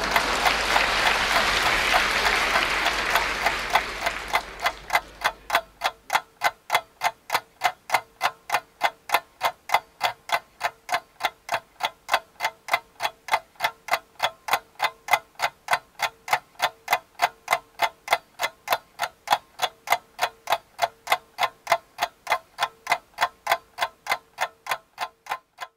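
Audience applause fading out over the first few seconds, then a clock ticking steadily on its own, between two and three ticks a second.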